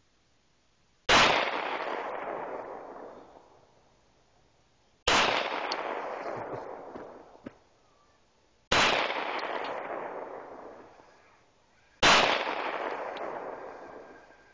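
.45 handgun fired four times, one shot every three to four seconds. Each sharp crack is followed by a long echo that fades over two to three seconds.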